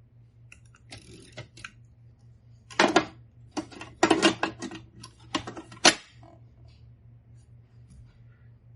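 Royal Empress manual typewriter clattering: scattered key and mechanism clacks in a few irregular bursts from about one to six seconds in, the sharpest near the end of them.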